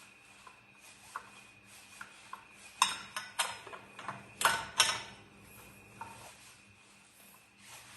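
Metal tools and machine parts clinking and knocking as a saw machine is taken apart, with a cluster of louder knocks about three seconds in and another about four and a half seconds in, over a faint steady hum.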